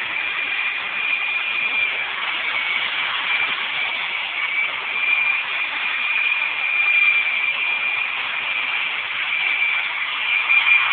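Handheld electric angle grinder running steadily with a high whine, its disc working along the edge of a plain glass sheet to polish the edge.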